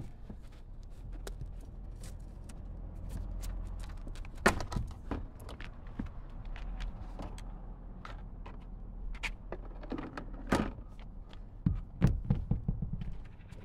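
Plastic eaves protector being worked loose and lifted off a roof edge by hand: scattered clicks, knocks and scrapes, with a sharper knock about four and a half seconds in, another near ten seconds and a quick cluster near the end, over a steady low rumble.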